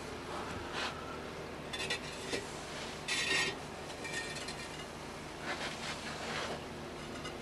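Ceramic pieces clinking and scraping against each other in a few separate bursts, the loudest about three seconds in.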